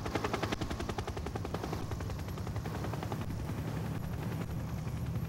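Helicopter flying low overhead, its rotor blades making a fast, even chop over a low rumble; the chop fades about three seconds in and the rumble carries on.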